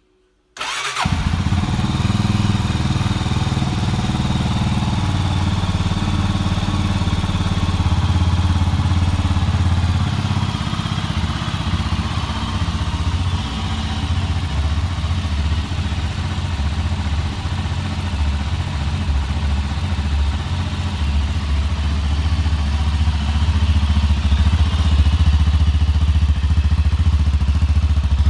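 Mash Five Hundred 400 cc single-cylinder motorcycle engine running at idle through its stock exhaust, with a steady low thumping beat. It comes in suddenly about half a second in and gets a little louder near the end.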